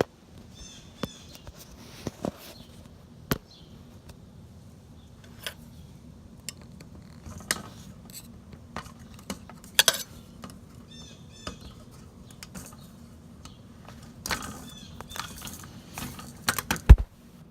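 Scattered sharp clicks and knocks, loudest near the end, with a few short high bird chirps about a second in and again around the middle.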